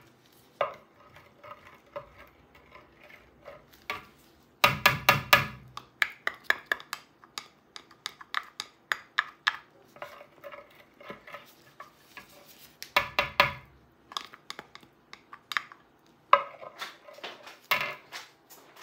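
A spatula scraping and clinking against a glass jar and a glass mixing bowl as shea butter is scooped out into the oils, with scattered knocks and two short runs of rapid tapping, about five seconds in and again about thirteen seconds in.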